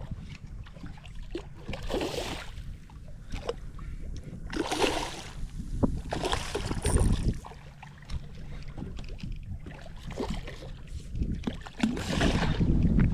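Water sounds around a kayak, with steady wind rumble on the microphone and a few louder noisy bursts, about two seconds in, near the middle, and near the end.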